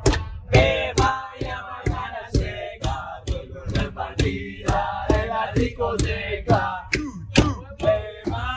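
Music with a steady drumbeat of about two beats a second and vocals over it.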